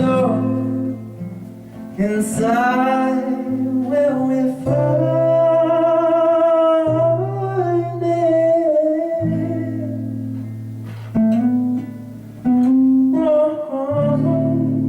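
Acoustic guitar chords with a voice singing long, held notes over them.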